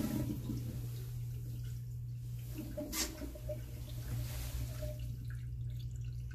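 Tail end of a Crane wall-hung toilet's flush: the rush of water fades out at the start, leaving a faint trickle in the bowl over a steady low hum. A single sharp click about three seconds in.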